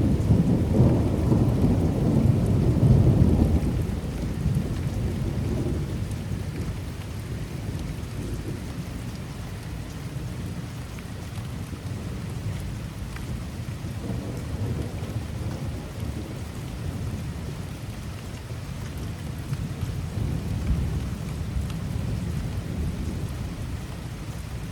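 Thunder rumbling over heavy rain. The rumble is loudest in the first few seconds and then dies away, leaving rain falling steadily.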